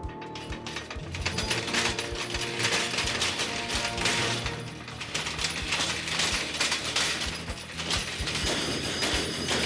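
Foley performance of a rickety machine struggling to get up to speed: dense metallic rattling and clanking over a low drone. The clatter gets busier and louder about a second in.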